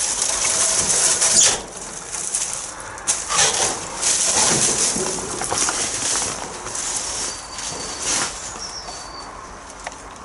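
Leaves, brambles and dry undergrowth rustling as they are pushed through, with footsteps on dead vegetation, in uneven surges that fade toward the end.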